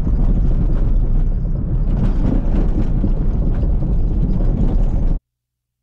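Car driving on a dirt road: steady engine and tyre rumble that cuts off suddenly about five seconds in.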